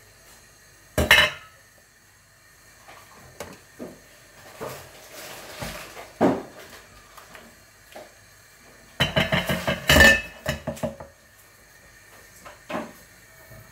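A wooden spoon stirring a stew in a stainless steel pot, knocking against the pot's side and rim. There is a loud metal clank about a second in, and a quick run of knocks about nine seconds in.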